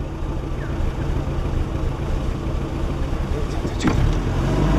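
Safari jeep's engine idling steadily, growing louder about four seconds in, with a sharp click just before that.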